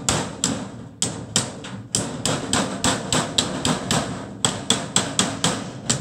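Hammer striking the end of a galvanized sheet-metal drive cleat, folding it shut over a rectangular duct joint. A quick, even run of sharp strikes, about three a second, with a brief pause about four seconds in.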